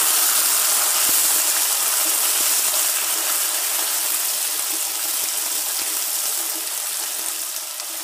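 Shallots and dried red chillies sizzling in hot oil in a non-stick pan as they are sautéed, with short scrapes and taps of a wooden spatula stirring them. The sizzle slowly dies down.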